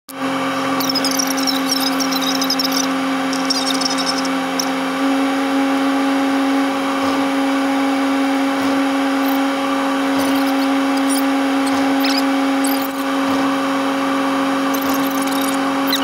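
A steady pitched hum from a running car, heard from inside its cabin. About one to three seconds in there are several high squeaks.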